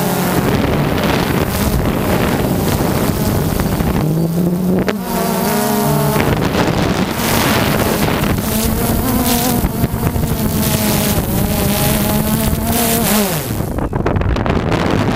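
Quadcopter drone's electric motors and propellers whining, heard through its onboard camera, with wind rushing over the microphone; the pitch rises and falls as the motors change speed. About thirteen seconds in the whine slides down and gives way to rough wind noise as the drone falls toward a crash.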